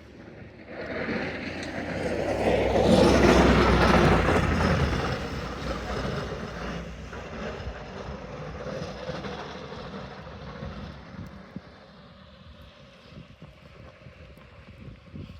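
A vehicle driving past on a snow-covered road, its tyre and engine noise swelling over a few seconds and then fading slowly away.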